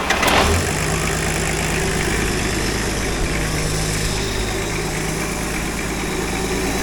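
Nissan RD28 six-cylinder diesel engine just after starting, settling within the first second into a steady idle.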